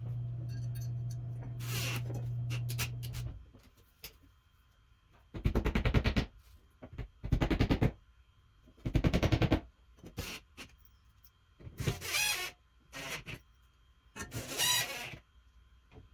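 Power drill running steadily for about three seconds, then three short, loud bursts of rapid hammering followed by a few shorter ones, as screws are driven to mount the charger's bracket.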